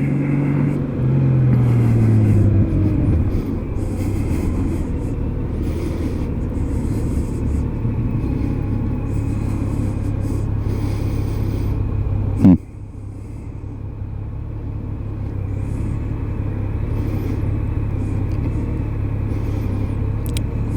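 Honda Gold Wing motorcycle's flat-six engine running with a steady rumble, its pitch falling over the first few seconds. About twelve seconds in there is a sharp knock, after which the sound drops and slowly builds back. The bike has a misfire and throws a knock sensor fault code.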